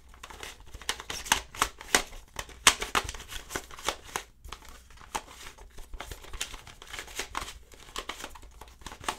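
YuXin Penguin 2x2, a penguin-shaped plastic 2x2 twisty puzzle, being turned quickly by hand near the end of a solve: a run of irregular plastic clicks and clacks, several a second, as the layers snap round.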